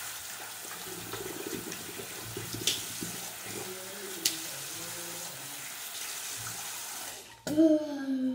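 Water running steadily from a tap into a sink for about seven seconds, with a couple of small knocks. It stops, and just before the end there is a short, loud sound that falls in pitch.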